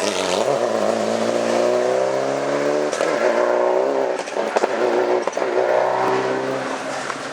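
Rally car engine accelerating hard, its revs climbing steadily, then a gear change about three seconds in with a few sharp cracks. The revs climb again after that.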